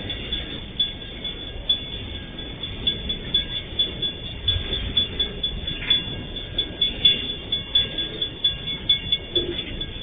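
MRS Logística freight train running along the line, a low rumble with irregular clanks and knocks.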